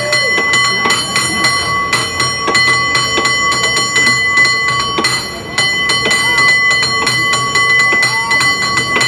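San Francisco cable car bell rung in a fast, rhythmic competition routine: many strikes a second over a steady ringing tone, with a brief break a little past halfway.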